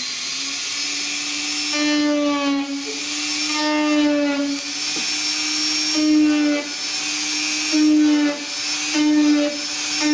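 Small electric rotary tool running with a steady whine as its hollow tube bit is pressed again and again into the model wing's surface through a rivet template, cutting ring-shaped scale rivet marks. The whine sags slightly and gets louder each time the bit bites, about every second or two.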